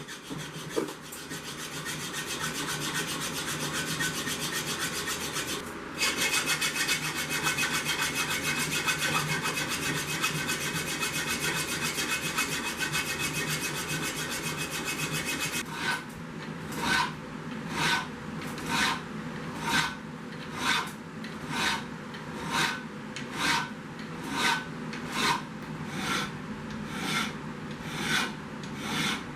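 Hand file rasping across forged carbon steel, cleaning up the bolster transition. For the first half the rasping runs continuously, breaking off briefly about six seconds in; then from about sixteen seconds it becomes separate, even push strokes, a little over one a second.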